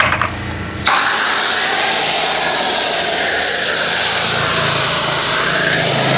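Pressure washer spraying: a steady, loud hiss of water jet that starts abruptly about a second in, with a low motor hum rising under it in the second half.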